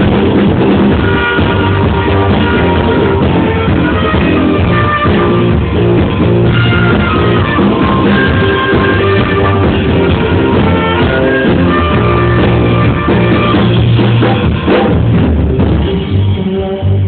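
A rock band playing live, guitars and drum kit with a steady beat, loud and continuous, thinning slightly near the end.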